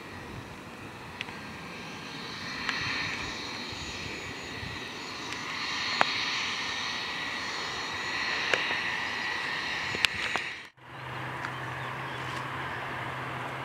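Twin-engine business jet's turbofans running at taxi, a steady jet hiss and whine, with a few sharp clicks of the tripod being jolted. About 11 s in the sound cuts off suddenly and gives way to a steady low drone of aircraft engines.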